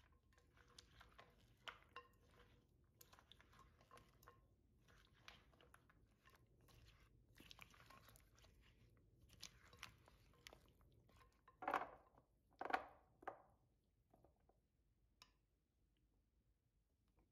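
A silicone spatula folds small petit-beurre biscuits through melted dark chocolate and cream in a glass bowl, making soft, sticky squelching and light crunching strokes. Three louder strokes come about twelve to thirteen seconds in, and it goes quiet after that.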